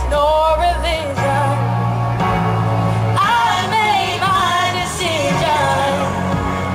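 A young girl singing a slow gospel song through a microphone and PA over a backing track, her voice holding and bending long notes above sustained bass notes.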